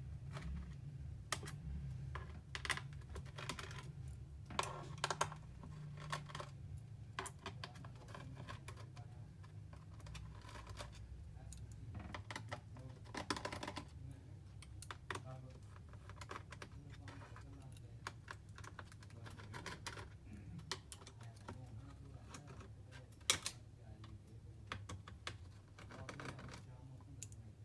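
Small screwdriver and hand tools working on a laptop's plastic bottom cover: irregular light clicks, taps and scrapes as the cover screws are undone and the case is handled. Under them runs a steady low hum.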